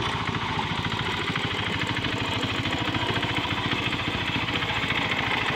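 Small engine of a Quick Capung Metal hand tractor running steadily while it tills a flooded rice paddy, a fast, even pulsing beat.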